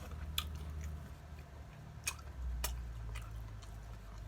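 A person chewing food close to the microphone, with a few sharp clicks scattered through.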